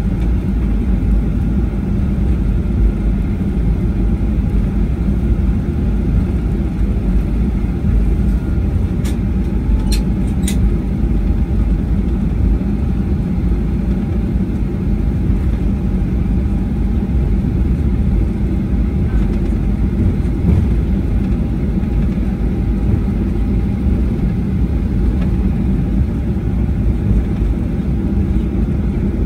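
Boeing 737-800's CFM56-7B turbofan engines running at taxi power, with the rumble of the airframe and tyres rolling over the taxiway, heard from inside the cabin. There is a steady low rumble, with three short clicks about nine to ten seconds in.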